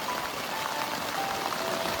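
Steady downpour of heavy rain, with a slow, simple background-music melody of single held notes playing over it.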